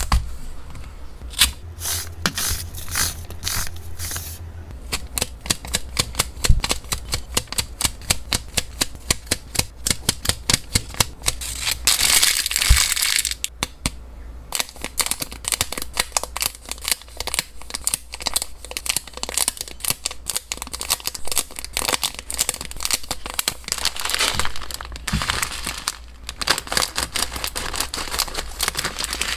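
Close-up handling of plastic food boxes and packaging: crinkling and rustling plastic, many light taps and clicks of lids and containers, with a couple of longer stretches of dense rustling. Near the end, scissors cut into a plastic bag of pellet food.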